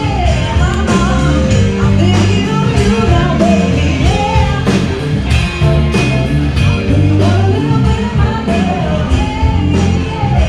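Rock song with a singer over a band with a steady beat.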